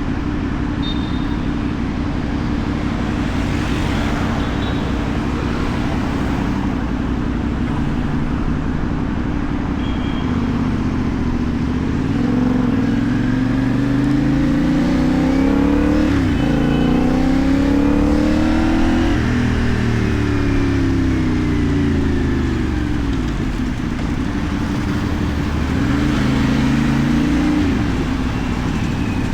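CFMoto 450NK parallel-twin engine through a LeoVince aftermarket exhaust while riding, over steady wind noise. About halfway through the engine climbs in pitch under acceleration, drops sharply at a gear change, climbs again and then falls away as it slows. A shorter rise in revs comes near the end.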